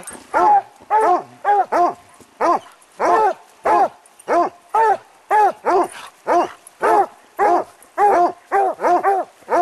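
Coonhounds barking treed at the base of a tree, a steady chop of short, loud barks about two a second. It is the tree bark that tells the hunter the dogs have a raccoon treed.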